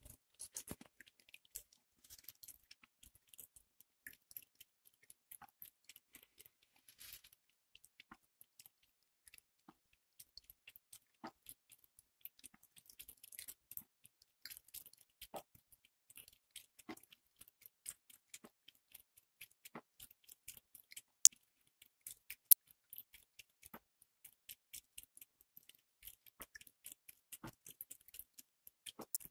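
Part-Bengal cat lapping water from a thin trickle from the bath tap: faint, irregular wet clicks of the tongue, several a second. Two louder sharp clicks come about two-thirds of the way through.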